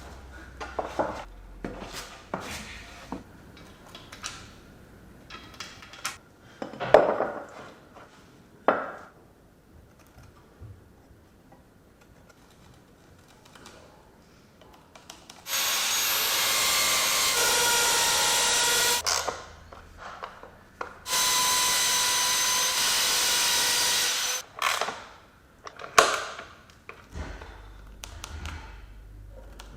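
Workshop tool sounds: scattered knocks and clicks of hand work, then a power tool running twice for a few seconds each, loud and steady with a whining tone, then a few more knocks with one sharp strike.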